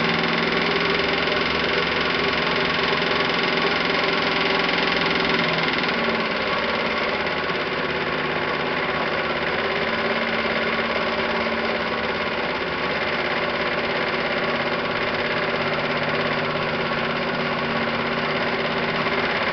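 Meccano model donkey pump running under steam, its chain, sprockets and gearbox turning over steadily. There is a constant hum, and its tone changes about six seconds in.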